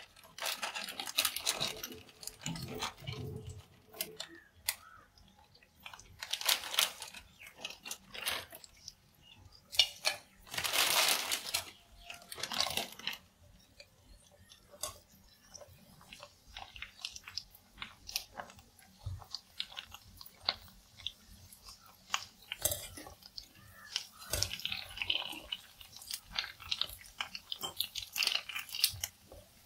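Ready-made pani puri discs deep-frying in hot oil in a kadai: a continual fine crackle and sizzle, with several loud hissing surges, the biggest about eleven seconds in, as more discs go in and they froth and puff up.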